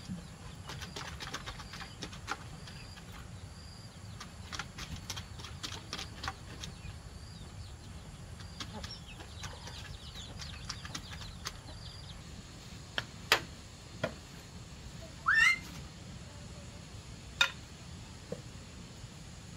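Chickens in a coop: a run of short high peeps about twice a second with scattered light clicks and scratching, then a few sharp clicks and one short, loud, rising squawk about fifteen seconds in.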